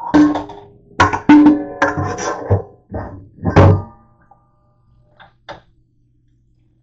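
Stainless steel mixing bowl clanking against dishes in a dish rack as it is handled: a quick run of knocks in the first four seconds, several of them leaving a short metallic ring. A few lighter clicks follow near the end.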